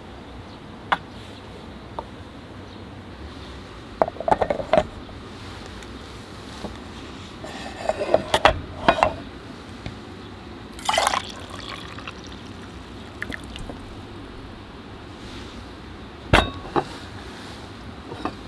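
Stainless steel camping mugs clinking against each other and set down on a wooden table, with hot coffee poured from one metal cup into a mug for about half a second near the middle. Under it runs a steady wind-like hiss.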